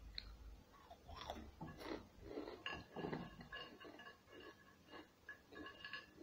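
A person chewing and biting food, an irregular run of short chewing sounds.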